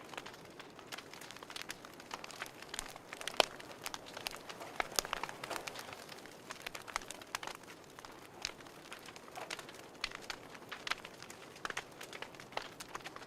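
Wood fire crackling: irregular sharp pops and snaps over a soft steady hiss, with one louder pop about three seconds in.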